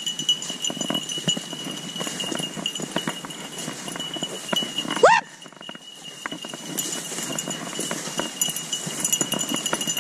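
Crunching and rustling of footsteps pushing through tall dry grass and brush, under a steady thin high-pitched whine. About five seconds in, a short rising call.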